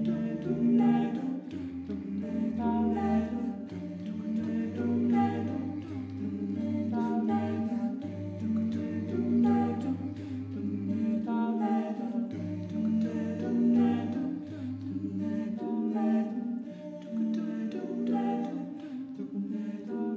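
A cappella group of voices singing a circlesong: several parts layer short repeating vocal phrases over a low sustained bass part, which drops out about three-quarters of the way through.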